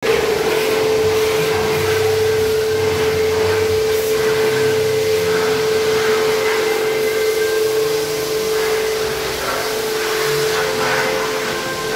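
High-pressure car washer running with a steady hum while its lance sprays onto a foam-covered car body.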